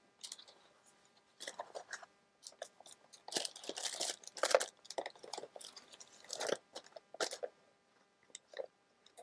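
Papers being rummaged through and handled: irregular, close rustling and crinkling with light taps and clicks.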